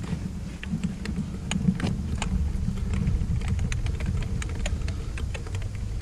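Ratchet clicking in short, irregular runs as its handle is swung back and forth, driving a torque multiplier on a seized truck lug nut, over a low steady rumble.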